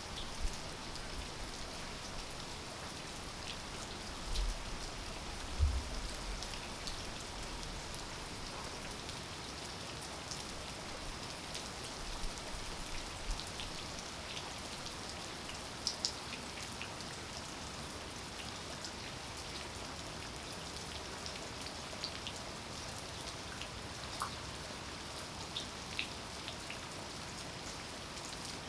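Steady rain falling, with individual drops landing close by as scattered sharp patters. A couple of low thumps come about four and six seconds in.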